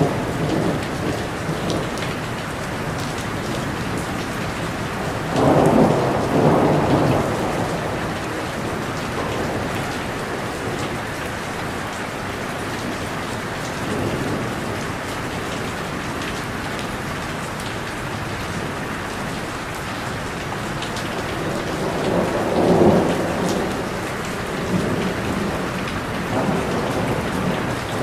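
Steady rain falling on tree leaves, with two louder swells of thunder, about six seconds in and again around twenty-three seconds in.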